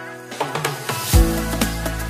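Intro background music: held chords give way to a rising swell, then a deep bass and a steady drum beat come in a little over a second in.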